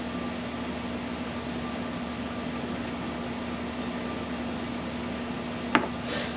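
Steady mechanical hum with a constant low tone, like a fan or air-conditioning unit. Near the end comes a single sharp click and a brief hiss as a small seasoning shaker is handled on the table.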